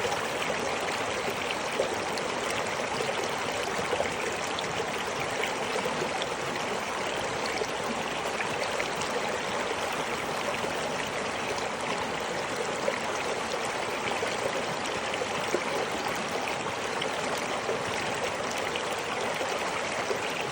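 River water running: a steady rushing with small splashes scattered through it.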